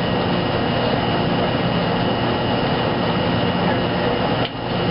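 Wascomat Junior W73 commercial front-load washer tumbling its wash load, with clothes and water churning in the drum under a steady mechanical noise and a faint high whine. The sound dips briefly near the end.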